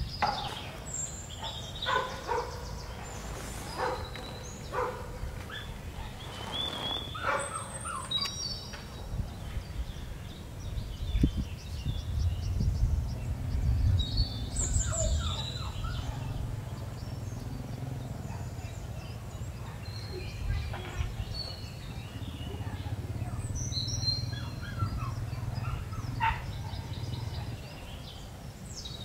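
Birds chirping and calling, short high chirps and whistles scattered throughout, over rustling and snapping of eggplant leaves and stems as the plants are handled. A low rumble runs through the middle.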